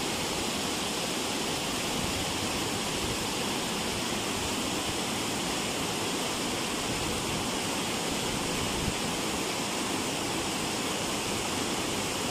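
Water gushing steadily out of a sluice gate and splashing into a shallow concrete channel, a continuous even rush.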